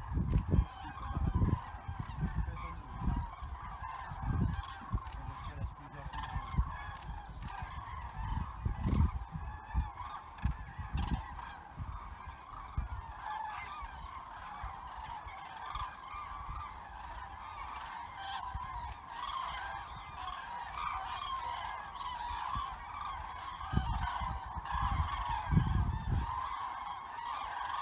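A flock of common cranes calling overhead: a continuous chorus of many overlapping trumpeting calls. A low rumble comes and goes several times, loudest near the start and again near the end.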